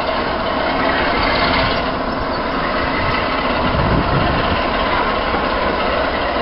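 Class 46 'Peak' diesel locomotive D182 idling steadily with its train standing at the platform, its Sulzer twin-bank twelve-cylinder engine heard from a coach behind it.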